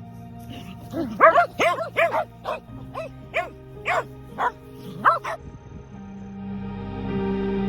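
Shetland sheepdogs barking in a quick run of about a dozen barks over four seconds, over ambient background music that grows louder near the end.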